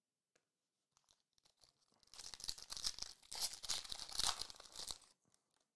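A foil trading-card pack (2021-22 Panini Recon basketball) being torn open by hand: a few faint handling ticks, then about three seconds of crinkling and tearing of the wrapper starting about two seconds in.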